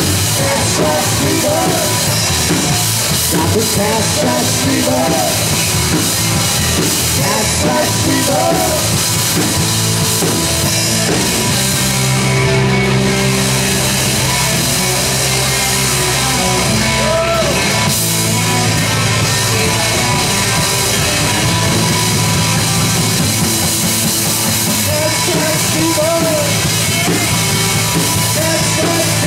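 Live rock band playing an instrumental passage: electric lead guitar with bent notes over drum kit, bass guitar and rhythm guitar, with a long held chord in the middle.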